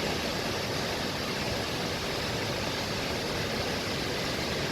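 Steady rushing of water pouring down a river's cascade of waterfalls.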